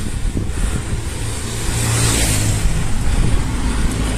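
A motor vehicle passing on the road, its noise swelling about two seconds in and fading, over a steady low rumble of road and wind noise.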